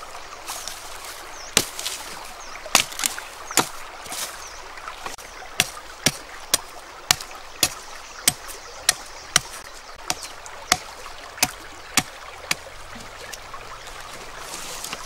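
A machete chopping into green bamboo, sharp cracking strikes: a few scattered blows at first, then a steady run of about two a second.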